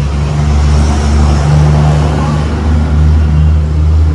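A motor running steadily with a loud low hum and a rushing hiss, cutting in and out abruptly.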